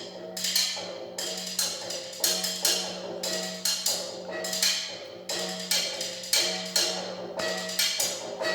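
Percussion ensemble playing live: sharp, bright strikes in a quick rhythm over a steady held low note.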